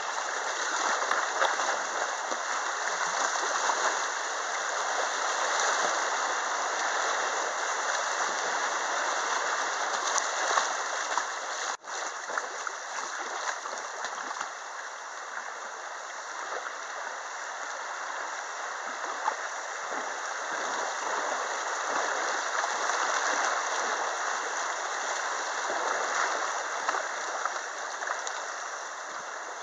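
Rapids of a small river rushing and splashing around a kayak, a steady loud whitewater rush that swells and eases slightly. The sound cuts out for an instant about twelve seconds in.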